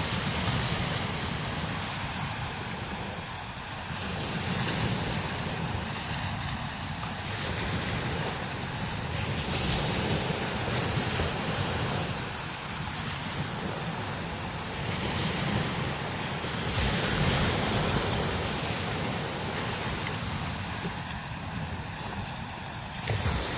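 Strong desert wind blowing in gusts that swell and ebb every few seconds, with a low rumble of wind buffeting the microphone.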